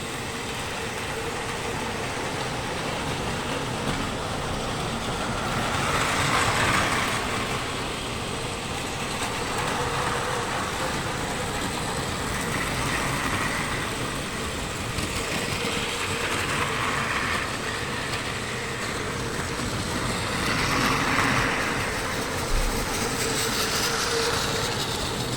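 Battery-powered Plarail toy trains running on plastic track: a steady motor whine with wheel noise, swelling about six times as trains pass close by.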